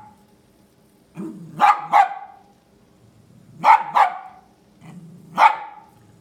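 Pomeranian barking in three bouts: two barks, then two more, then a single bark near the end. The barks are warning barks at a millipede on the ground in front of it.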